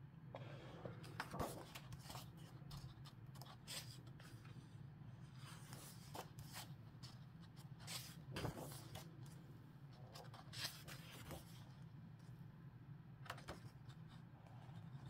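Pages of a hardback book being turned by hand, a quiet paper rustle and flap every few seconds.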